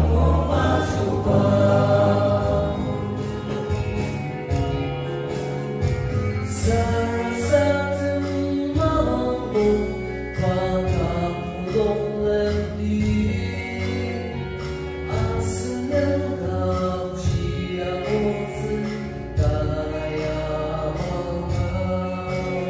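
A choir singing a gospel hymn over instrumental accompaniment, with a sustained low bass line and occasional cymbal-like strokes.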